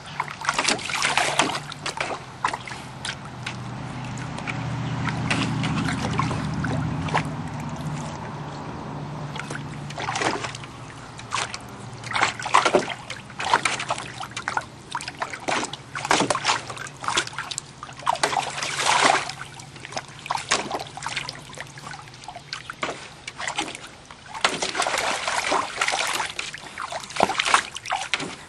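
Pool water splashing and sloshing in repeated short, irregular splashes. A low hum swells and fades in the first half.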